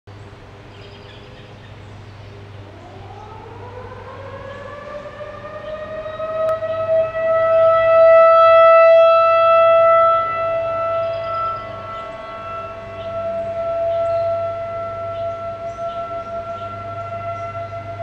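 Federal Signal 2001-AC outdoor warning siren winding up from a low pitch to a steady tone during a siren test. Its sound swells and fades as the rotating siren turns.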